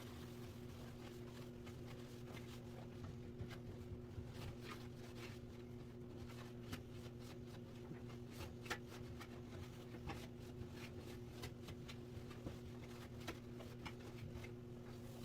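Faint handling noises of box fan parts being cleaned and handled: irregular small clicks and rubbing over a steady low hum.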